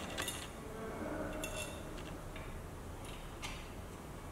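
A few light clicks and taps as a density meter's measuring bracket is handled and set onto the weighing pan, over a steady low hum.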